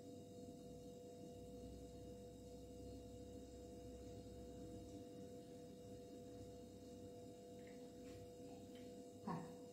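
Near silence: room tone with a faint steady hum, and one brief short sound near the end.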